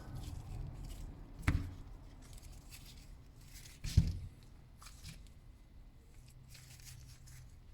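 Small metal nail-gun parts being handled and fitted together by hand, with two light knocks, a louder one about four seconds in.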